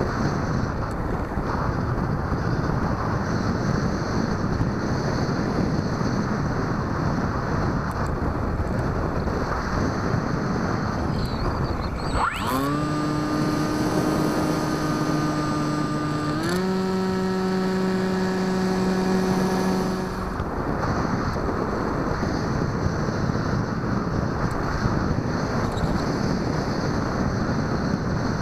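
Airflow rushing over the microphone of a camera riding on a Bixler 2 RC plane in flight. About twelve seconds in, the plane's electric motor and propeller spool up to a steady hum, step up to a higher pitch about four seconds later, and cut out about four seconds after that, leaving only the wind.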